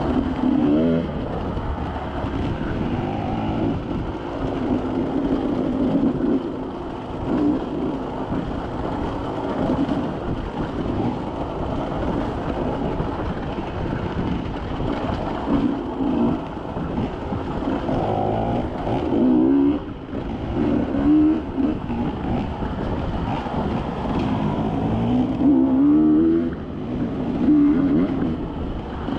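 Off-road vehicle engine running on a trail, its note rising and falling again and again as the throttle is worked, over steady rumble and rattle from the rough ground.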